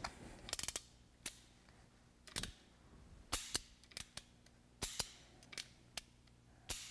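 Ruger Blackhawk single-action revolver being cocked and its cylinder turned by hand: a string of sharp metallic clicks, about a dozen in irregular succession, from the hammer notches and the pawl and cylinder bolt. It is a timing check on a freshly filed pawl, the cylinder locking up just as the hammer reaches full cock.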